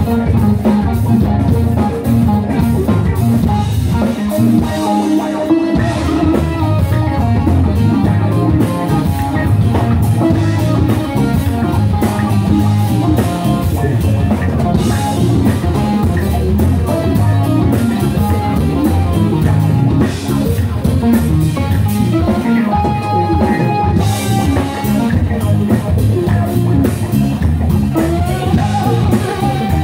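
Live rock band playing an instrumental passage on electric guitar, keyboards, bass guitar and drum kit, with the bass and kick drum dropping out briefly about five seconds in.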